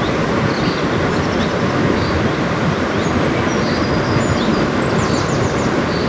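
Rushing water of a jungle stream swollen by the rainy season, a steady loud rush.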